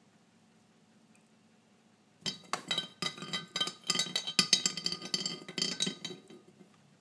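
A teapot lid clinking and rattling around inside a teapot as a cat works at getting it out: a dense run of sharp clinks starting about two seconds in and stopping about a second before the end.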